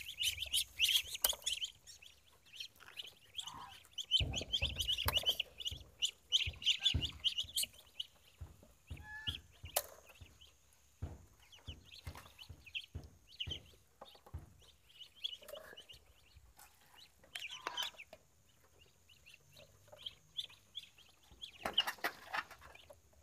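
A group of month-old Muscovy ducklings peeping on and off while they feed, with many quick clicks of bills pecking at a feed trough.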